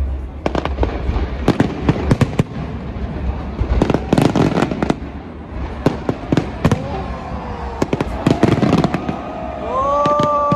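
Fireworks display going off: a rapid, irregular series of sharp bangs and crackling bursts. Near the end a drawn-out pitched whoop rises and falls over the bangs.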